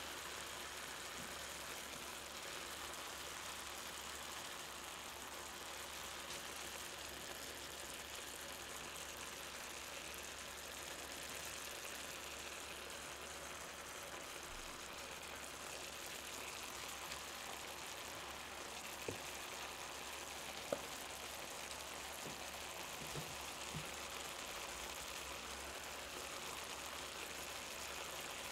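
Faint steady sizzle of chicken thighs and mushrooms cooking in a stainless steel pot, with a few soft clicks about two-thirds of the way through.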